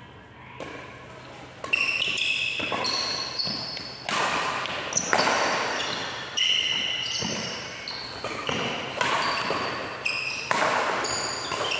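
Badminton doubles rally: rackets striking the shuttlecock at an irregular pace, about once a second, beginning a little under two seconds in, each hit echoing around a large hall. Shoes squeak on the court between the hits.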